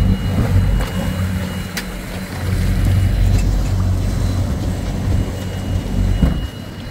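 Boat's outboard motors running with a steady low rumble, with a hiss of wind and water over it.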